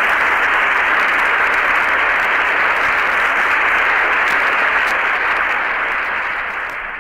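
Crowd applauding steadily, easing off slightly near the end.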